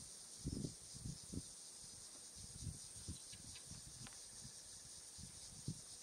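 Steady high-pitched insect hiss, with a few short low bumps on the microphone, the loudest about half a second in.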